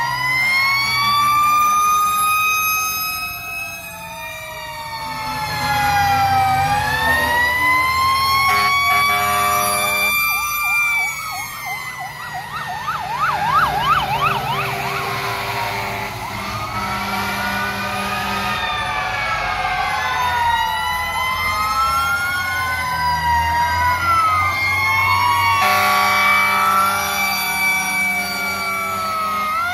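Sirens of several passing fire trucks and rescue trucks wailing together, overlapping tones rising and falling, with a fast yelp around the middle. Steady horn blasts sound about eight seconds in and again near the end.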